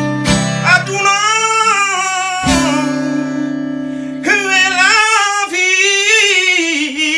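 A man singing long, wavering notes over an acoustic guitar, with a few quick strums near the start and another strummed chord about two and a half seconds in.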